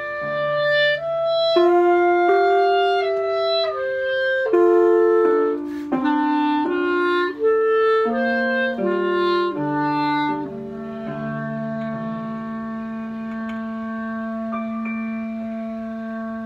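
Instrumental music: several sustained pitched voices moving together in chords, changing every second or so, then settling about ten seconds in on one long held chord.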